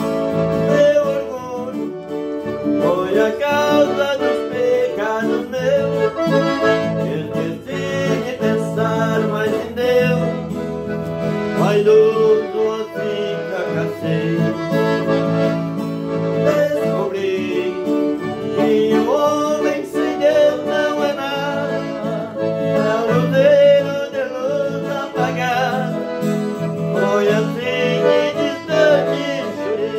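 A piano accordion and a strummed acoustic guitar playing a hymn together, with a man's voice singing along.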